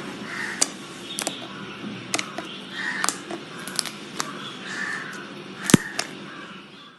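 Slime being squished and poked by hand, with sharp clicking pops and short squelches; the loudest pop comes near the end.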